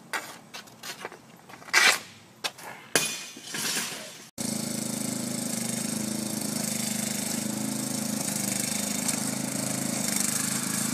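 A few sharp knocks and clacks, from a hockey stick and puck on a driveway, then from about four seconds in a riding lawn mower's engine running steadily.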